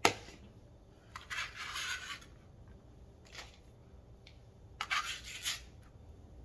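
Chef's knife blade scraping chopped green onions across a plastic cutting board and into a plastic mixing bowl: a sharp tap at the start, then two brief scraping passes a few seconds apart.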